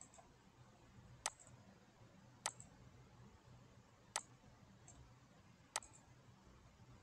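Computer mouse clicking: five sharp single clicks spaced a second or more apart, over a faint low hum.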